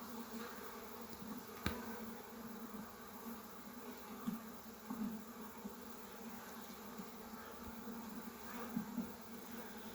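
Honeybee colony in an open hive buzzing steadily with a low hum, the sound of bees stirred up during an inspection. A single sharp click comes about two seconds in, with a few softer knocks later.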